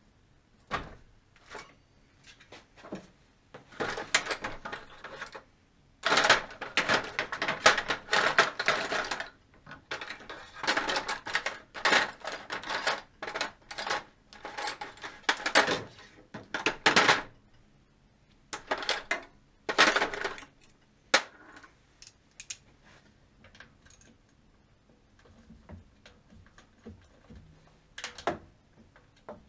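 Metal hand tools and sockets clinking and clattering as an 8 mm socket is fetched, in several spells of clatter through the first twenty seconds or so, then only a few light ticks.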